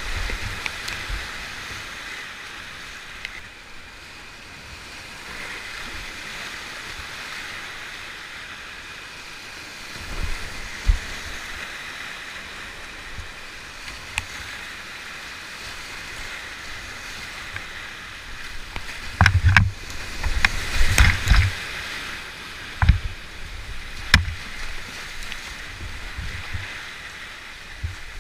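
Whitewater rapids rushing steadily around a kayak running a steep rocky creek. About two-thirds of the way through comes a cluster of sharp knocks and splashes against the boat, then two more single knocks.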